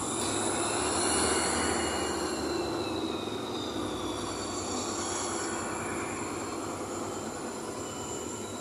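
A bus in motion, heard from inside: steady engine and road rumble, with a high thin whine that slowly falls in pitch over a few seconds.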